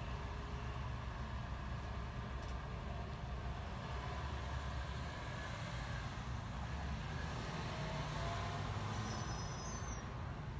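Diesel engine of a refuse recycling truck running with a deep, steady low rumble.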